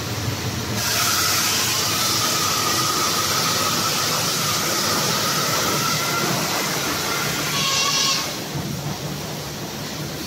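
Snack production line machinery running with a steady low hum. A loud hiss with a faint whine starts about a second in and cuts off abruptly about eight seconds in.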